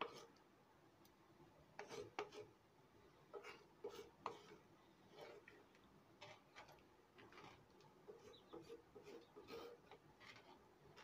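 A ladle stirring dal in a clay pot: faint, irregular scrapes and light knocks against the pot's sides.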